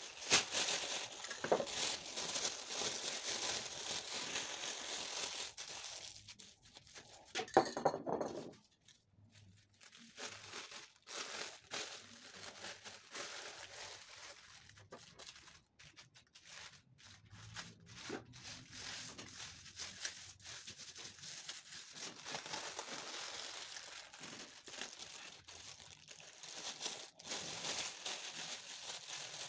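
Thin plastic bag crinkling and rustling as it is crumpled and dabbed onto wet spray paint to give it texture, in irregular spells, with a louder rustle about eight seconds in.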